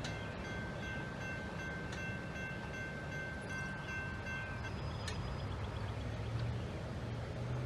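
CSX manifest freight train passing, with a steady low rumble and a high steady whine over it that stops about four and a half seconds in.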